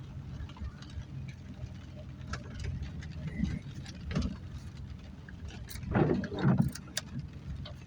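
A vehicle moving slowly along a rough dirt drive: a steady low engine hum with irregular knocks and rattles from the body and suspension over bumps, and a louder clunk and creak about six seconds in.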